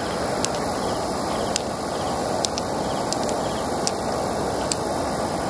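Large freshwater pearls clicking against one another as they are picked from a river mussel and added to a handful, about six sharp clicks at irregular intervals, over a steady rushing background noise.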